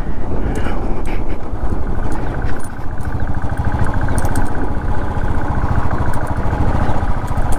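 Royal Enfield 350's single-cylinder engine running, a steady, fast low beat of firing pulses.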